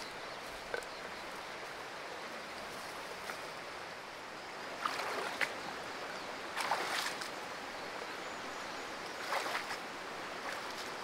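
Forest river flowing over its bed, a steady rushing of water. A few short louder noises come about five, seven and nine seconds in.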